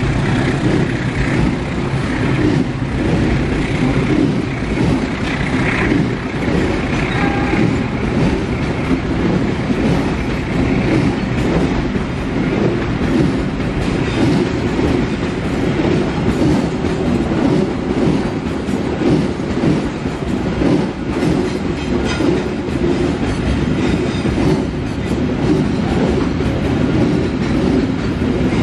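Container freight train's flat wagons rolling past: a steady rumble of steel wheels on the rails with rapid clacking.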